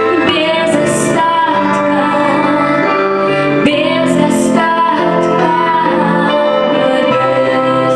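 Music: a woman singing a slow song with sustained notes over instrumental accompaniment, typical of a Christian worship song.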